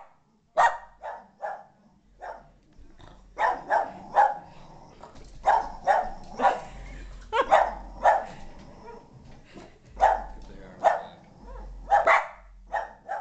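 Boston Terrier barking again and again in quick clusters of two or three sharp barks with short pauses between: alarm barking at an unfamiliar figure, a ball-jointed doll.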